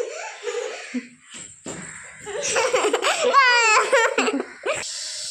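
Small child laughing and squealing, loudest about three seconds in as a high, wavering giggle, with a few light knocks and short voice sounds before it.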